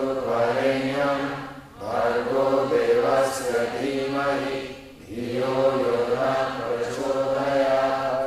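Sanskrit mantra being chanted on held, fairly level pitches, in long phrases with short breath breaks about two and five seconds in.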